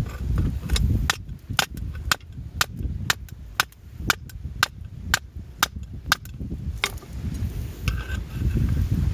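A small steel fire striker being struck in a steady rhythm, about two sharp strikes a second for some six seconds, each a crisp metallic click with a little ring.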